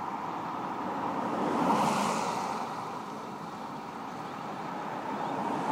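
A road vehicle passing close by: its tyre and engine noise swells to a peak about two seconds in and fades, and another begins to approach near the end.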